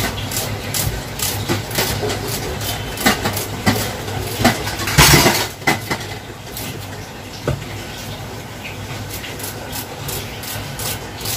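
Kitchen knife slicing red onion into thin strips: a run of short, crisp cuts at an irregular pace, with a louder burst of noise about five seconds in, over a steady low hum.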